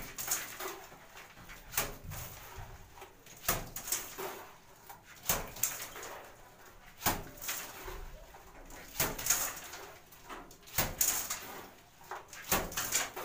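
Wet sand-cement mortar being flicked onto a lightweight concrete block wall as a splash coat, each throw landing with a sharp wet splat and a short spatter. The splats come about every second and a half to two seconds, then closer together near the end.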